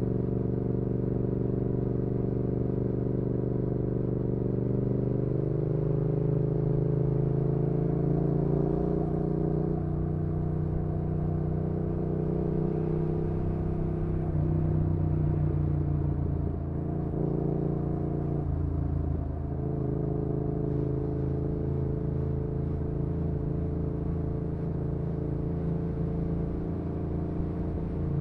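2019 Yamaha XSR700's parallel-twin engine running through an aftermarket IXRACE MKII exhaust, heard from on board while cruising. The engine note holds steady, with a few shifts in pitch at about 5, 10, 14 and 19 seconds in.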